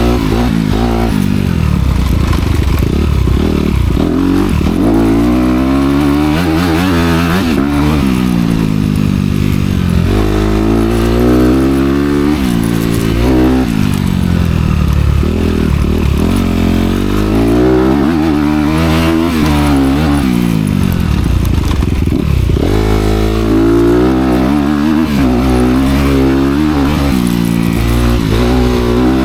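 Honda CRF250R dirt bike's single-cylinder four-stroke engine, through its dual exhaust, being ridden hard: the engine pitch climbs and drops over and over every couple of seconds as the throttle is opened and closed.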